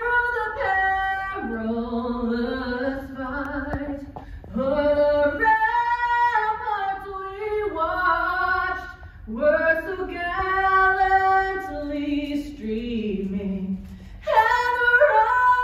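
A woman singing solo into a microphone, unaccompanied, holding long notes and sliding between pitches.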